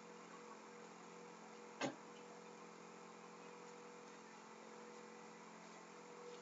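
Near silence over a faint steady electrical hum made of several thin steady tones, broken by a single short sharp click about two seconds in.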